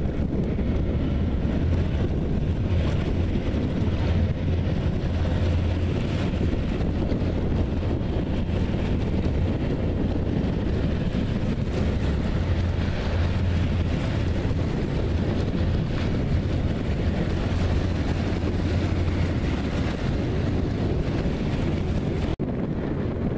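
Steady wind rumble on the microphone, over the low drone of M3 amphibious bridging vehicles running on the river and water washing against the bank.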